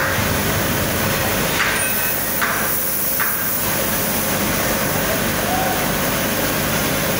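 Steady machine noise from a foundry core-making machine, with three short hisses of air about one and a half, two and a half and three seconds in.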